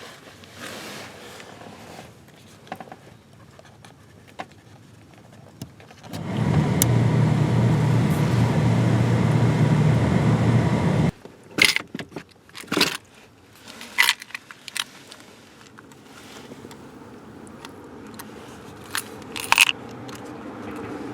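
Car heater blower fan running at speed, a steady rush of air over a low motor hum, for about five seconds before it cuts off abruptly. Sharp clicks and a clatter, like keys jangling, follow.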